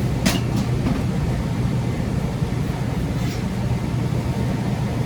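Trane 90% gas furnaces running: a steady hum of their blower and inducer motors, with a couple of light clicks near the start and another about three seconds in.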